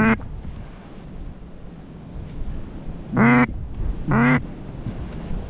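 Duck quacking: one short quack at the start, then two longer, loud quacks about a second apart past the middle.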